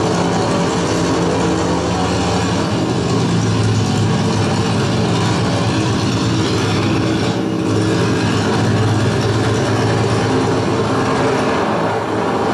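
Vintage piston aircraft engine running steadily, a constant-pitch drone with a slight dip about halfway through.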